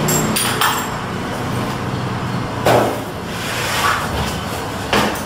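Metal grille gate and its lock clinking and knocking a few times, over a steady low background noise.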